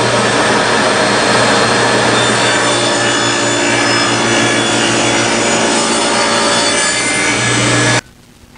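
Table saw running and cutting through the edge of a glued-up wooden cutting board, trimming part of a 3/4 inch edge strip away. The sound is loud and steady and cuts off suddenly near the end.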